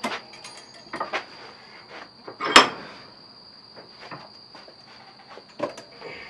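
Clanks and knocks of a steel 330 Conibear trap being handled and worked in a cast-iron bench vise. There are several light knocks, with one louder metallic clank about two and a half seconds in that rings briefly.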